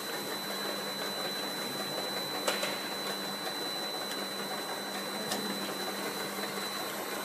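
Automatic bottle labeling machine running: a steady whir of motors and conveyor with a constant high whine and a low hum. Two sharp clicks, about two and a half seconds apart.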